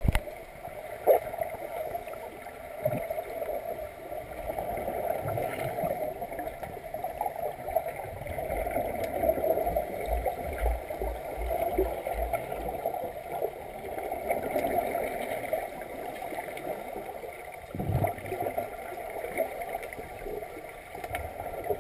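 Underwater sound in a swimming pool, heard through a submerged camera: scuba regulators' exhaled bubbles gurgling over a steady muffled watery rush, with a few dull knocks.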